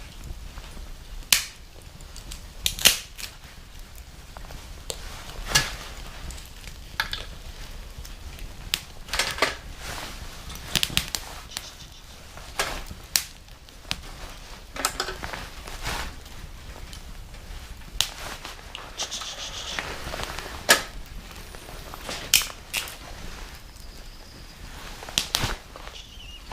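Burning wooden disposable chopsticks crackling and popping in a small fire stand: irregular sharp snaps, a few of them much louder than the rest.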